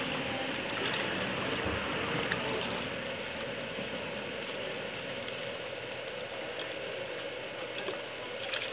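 Steady wash of moving water around people standing in a pond, with a faint steady hum underneath and a few small splashes.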